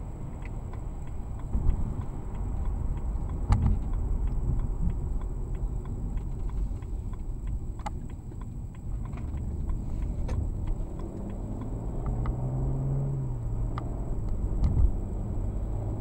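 Road and engine noise inside a moving car, picked up by a windshield dash cam, with scattered light ticks and a faint steady high whine. About twelve seconds in, the engine note rises as the car speeds up again.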